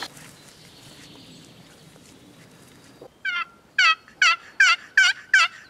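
Wooden turkey box call worked in a run of about seven hen yelps, each note dropping in pitch, coming two to three a second. The yelps start about three seconds in, after a quiet stretch.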